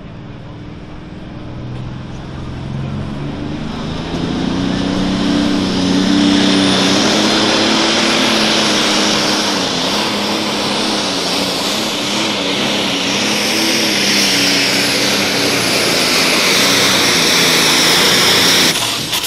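John Deere super stock pulling tractor's turbocharged diesel engine at full power under the load of the sled, building over the first few seconds and then held at high revs with a high turbo whistle over the engine note. The sound drops off abruptly near the end.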